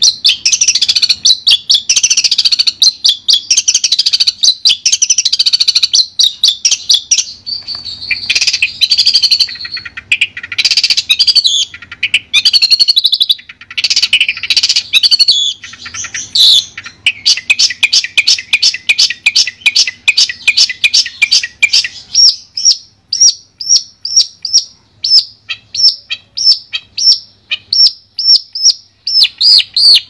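Long-tailed shrike (cendet) singing loudly in a clear training recording. For about the first half it sings a fast, varied chattering warble. This gives way to a rapid string of short notes, and from about two-thirds in to separate short chips at about two or three a second.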